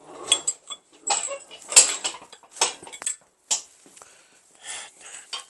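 A person breathing heavily and straining, with irregular clunks, clicks and scrapes as a heavy engine is shifted around by hand.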